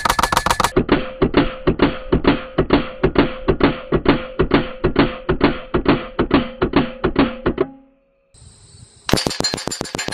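LCS SK-19 air rifle firing a short, fast full-auto burst, its pellets smacking a steel target. The burst then plays again slowed down, as about twenty evenly spaced deep, drawn-out thuds with a low ring under them. About nine seconds in, electronic music with a fast beat starts.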